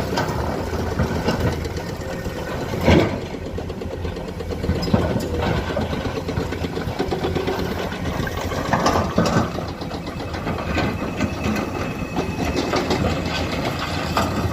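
Komatsu excavator's diesel engine running steadily, with a few sharp knocks over it, the loudest about three seconds in.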